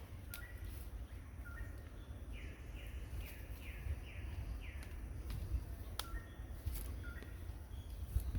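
Birds calling outdoors: short two-note chirps repeated several times, and a quick run of five falling calls in the middle. Under them is a steady low rumble, with a few sharp clicks.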